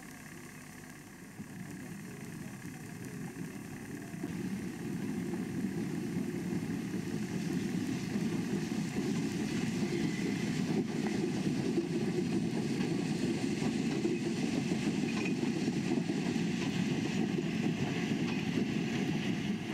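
Steam train rolling by, a steady rumble that grows louder over the first few seconds and then holds as the carriages pass.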